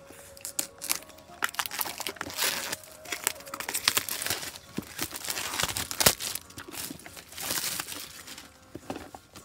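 Packaging crinkling and rustling by hand in irregular crackly bursts as a parcel is unwrapped, with the loudest crackle a little past the middle.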